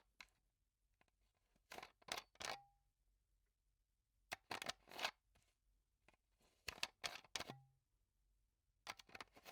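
Plastic water bottle cap being twisted, giving four short bursts of crackling plastic clicks spaced a couple of seconds apart.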